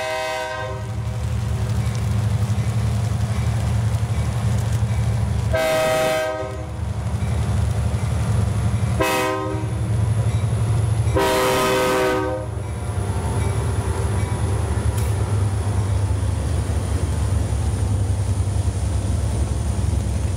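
Blue Ridge Southern EMD diesel locomotives approach and pass with a steady low engine drone. The horn sounds four blasts, long, long, short, long, the warning signal for a grade crossing. After the locomotives pass, freight cars roll by on the rails.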